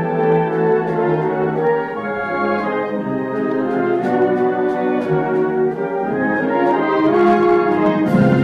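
Military band playing with the brass prominent: sustained chords from many instruments, swelling louder near the end, heard from the auditorium.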